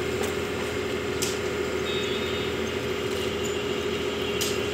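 Excavator's diesel engine running steadily with a constant hum, with three brief sharp clicks: one early, one about a second in, one near the end.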